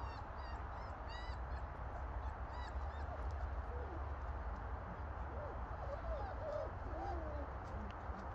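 Young German Shepherd puppies squeaking and whimpering: a quick run of short high squeaks in the first few seconds, then lower wavering whimpers in the second half, over a steady low rumble.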